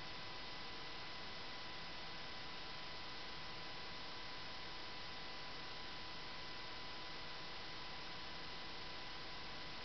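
Steady electrical hiss with a faint, constant high-pitched whine underneath, unchanging throughout; no distinct events.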